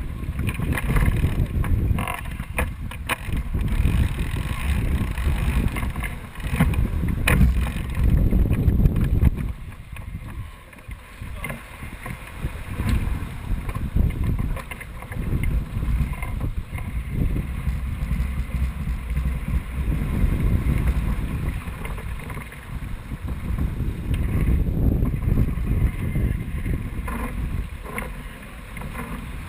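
Wind buffeting the microphone over water rushing along the hull of a sailing yacht under way, the rumble surging and easing in gusts.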